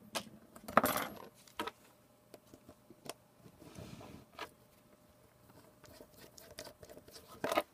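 Light clicks and taps of a small precision screwdriver and tweezers working on the tablet's speaker screws and plastic housing, with a louder clatter about a second in and another near the end.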